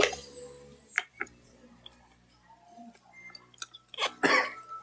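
Light clicks and clinks of eating utensils against a plate, with a louder, brief noisy scrape or rustle about four seconds in.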